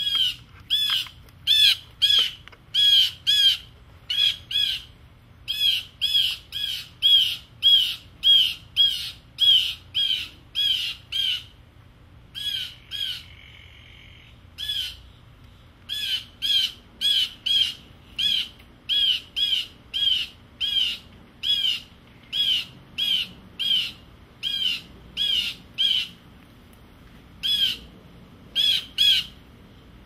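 Blue jay giving harsh jeer calls over and over, about two a second, with a softer buzzy call about halfway through and a short pause near the end: alarm calls scolding a cat below it.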